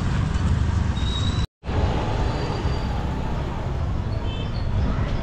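Motorbike being ridden: a steady low rumble of engine and wind noise. It drops out abruptly for a split second about one and a half seconds in.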